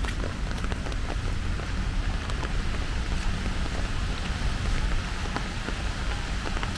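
Steady rain falling: a continuous hiss dotted with many sharp drop ticks, over a steady low rumble.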